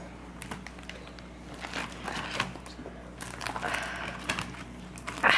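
Hands squeezing and kneading fluffy borax slime in a bowl: crackling and squishing with scattered small clicks, loudest near the end.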